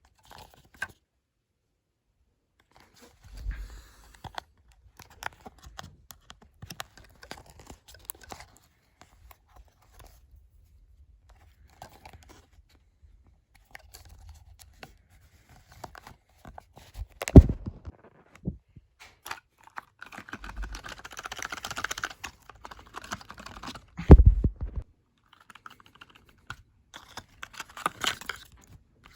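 Hands opening the small cardboard box of an Apple USB-C to headphone jack adapter: scattered light clicks and taps, a longer stretch of rustling packaging past the middle, and two sharp knocks, one a little past halfway and one near the end.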